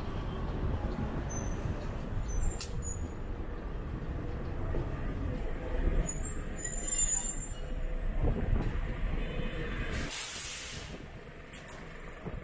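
City bus engine running close by, with a short sharp hiss of air released from its brakes near the end, after which the rumble falls away. A few faint high squeaks come earlier.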